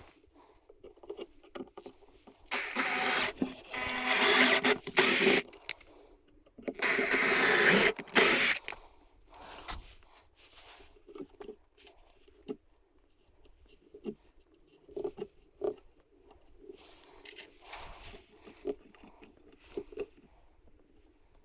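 Two bursts of harsh scraping hiss from tool work on pallet wood, each about two to three seconds long, then scattered light clicks and knocks of handling.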